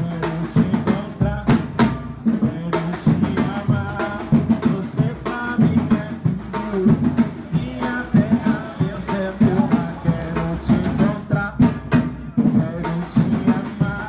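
Music with a strong drum and percussion beat.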